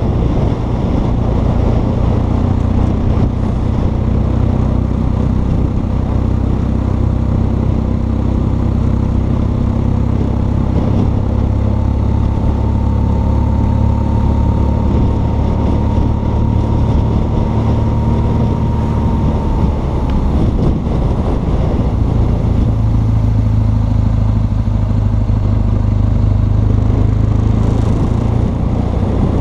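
BMW R1200 GS Adventure's flat-twin boxer engine running steadily at road speed while the motorcycle is ridden.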